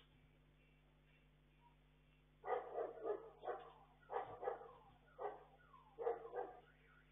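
A dog barking in a run of about eight short barks, some in quick pairs, starting about two and a half seconds in and stopping near the end. It is heard through a security camera's microphone, which sounds thin, over a faint steady hum.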